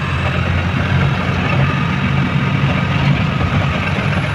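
Truck engine running steadily with a low drone, under a wide rushing noise, as the truck drives along.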